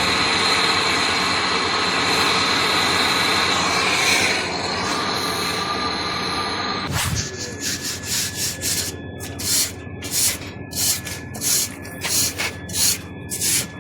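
A steady hiss for about seven seconds, then it gives way suddenly to rhythmic rubbing strokes by hand, about two a second, like sanding or scrubbing a part of the air conditioner.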